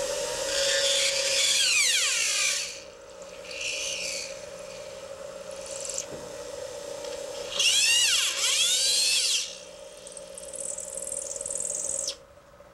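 High-speed rotary tool grinding into acrylic in several bursts, its whine dipping in pitch and rising again as the bit bites and eases off, over a steady hum that stops near the end.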